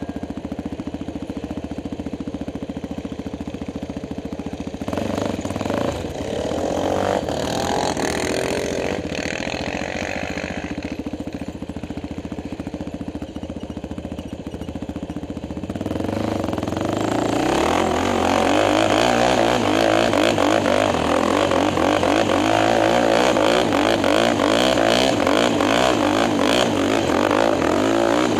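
Quad (ATV) engine idling steadily, with engine sound swelling and falling for several seconds early on; about sixteen seconds in it revs up and runs hard under load, its pitch wavering, as the quad climbs a sand dune.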